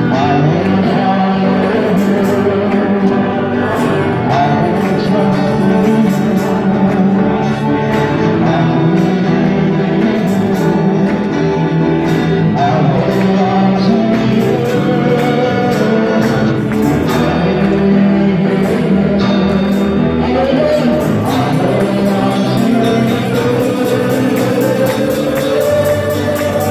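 Christian praise and worship music with singing, loud and continuous. A steady percussion beat stands out more clearly in the second half.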